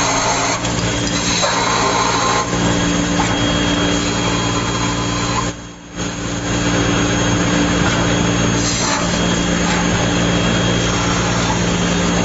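CNC lathe running while machining a small metal part: a steady hum with a thin high whine over a dense hiss, dropping away briefly for about half a second a little before halfway.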